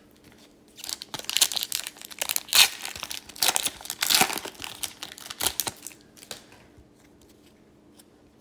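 Shiny foil wrapper of an Upper Deck Series 2 hockey card pack crinkling and tearing as it is ripped open by hand. The crackling starts about a second in, lasts some five seconds, and dies away about six seconds in.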